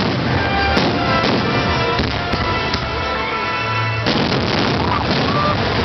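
Fireworks bursting and crackling over music playing on loudspeakers, with a few sharp bangs in the first half.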